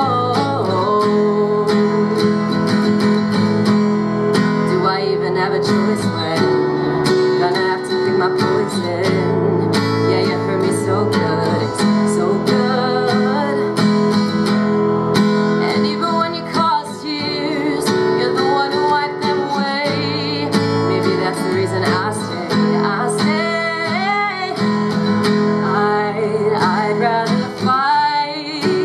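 Solo acoustic guitar strummed in sustained chords, with a woman's voice singing over it in gliding runs, most of all in the second half.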